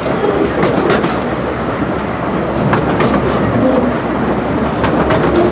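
Riding in an open carriage of a 15-inch gauge miniature railway train: a steady rumble of wheels on the track, with a few irregular clicks over the rail joints.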